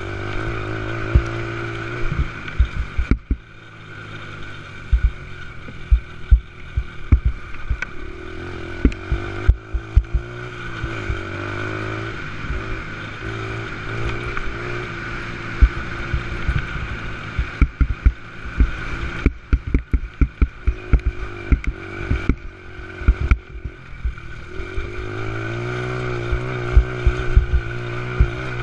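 Youth 90cc ATV engine revving hard and easing off over and over as it is ridden along a rough dirt trail, its pitch rising and falling, with many sharp knocks from the bumps.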